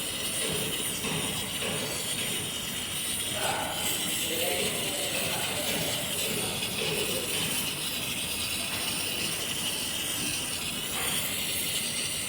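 Brazing torch flame hissing steadily on copper pipe.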